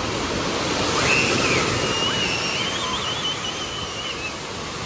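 Steady rush of water from splash-pad fountain jets filling an echoing indoor waterpark, with distant children's high-pitched squeals from about a second in.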